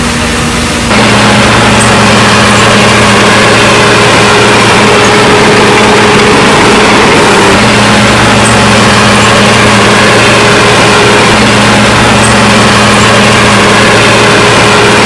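Heavy road-building machine's engine running steadily at a constant speed, stepping up louder about a second in.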